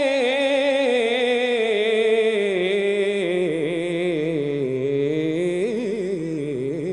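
A man singing solo in an Arabic devotional qasida. He holds one long melismatic vowel on the word "khair", and the wavering, ornamented line slowly descends in pitch.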